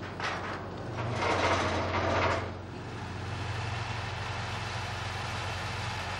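Crane engine running with a steady low drone while a wrecking ball demolishes concrete. In the first two and a half seconds there are two rushes of crashing, crumbling debris, after which only the engine is left.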